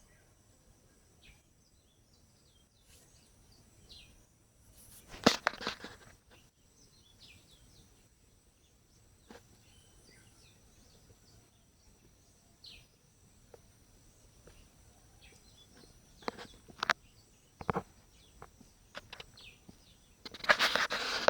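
Outdoor ambience of birds chirping in short, scattered calls over a steady high-pitched insect drone. Loud noisy bursts come about five seconds in and again near the end, with a few sharp clicks in between.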